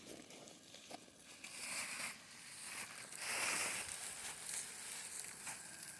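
Eggs and sausage frying in a pan on a small propane camp stove, sizzling and crackling, swelling louder in the middle.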